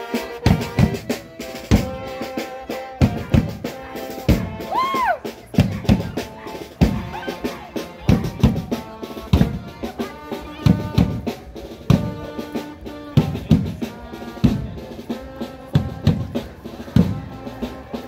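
Marching band playing a processional march: bass and snare drums beating about two strokes a second under held melody notes.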